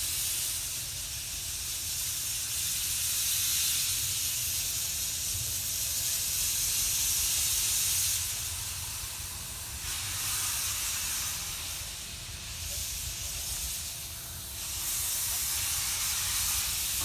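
Steam hissing from the standing Hudswell Clarke locomotive No. 104, with a low rumble beneath it. The hiss is strong at first, eases about eight seconds in and again around twelve seconds, then comes back strongly near the end.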